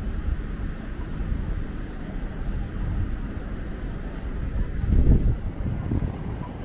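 City street traffic: a steady low rumble of passing vehicles, with a louder surge about five seconds in.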